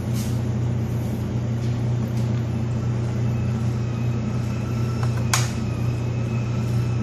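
Steady low machinery hum at an even level, with a single sharp click a little past five seconds in.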